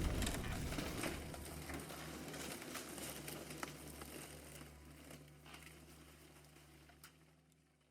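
Dying tail of a bomb explosion sound effect: the low rumble fades away over the first few seconds while scattered crackles and ticks keep falling, thinning out to near silence about five seconds in.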